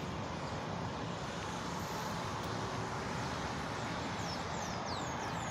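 Steady hiss of distant road traffic, with a few faint, high, falling chirps near the end.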